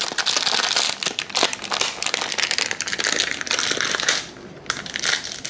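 Food packaging being crinkled and handled, a dense rustle with small clicks that stops about four seconds in, followed by a few light taps.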